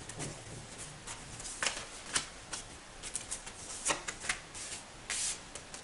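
A deck of tarot cards shuffled by hand, with irregular flicks and snaps of the cards and brief rustles, then cards slid out and laid down on a cloth-covered table.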